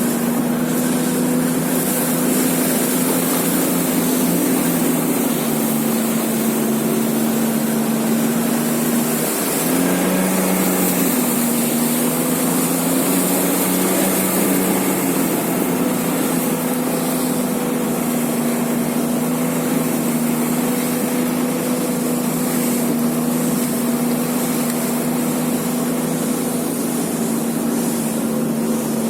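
A small engine running steadily at travelling speed under a constant rushing hiss. Its pitch drops briefly about five seconds in, and again around ten seconds in before it picks back up.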